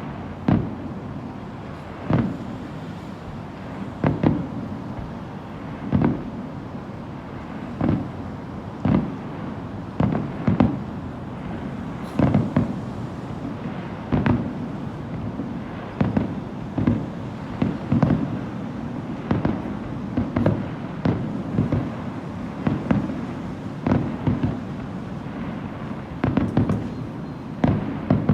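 Aerial fireworks shells bursting in a long series of booms over a continuous low rumble. The booms come about every two seconds at first, then quicken to one or two a second about halfway through.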